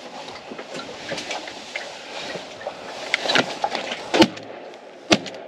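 Two shotgun shots about a second apart near the end, fired at pintails flying in over the decoys, over a steady background of wind noise with a few small knocks and rustles.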